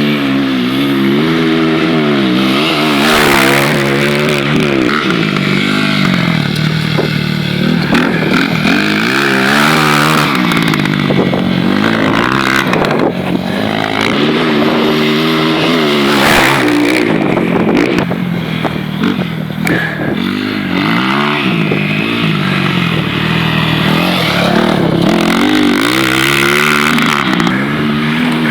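Tornado 375 motorcycle engine being ridden hard. Its pitch repeatedly climbs under throttle and drops back through gear changes. A few sharp clatters sound along the way.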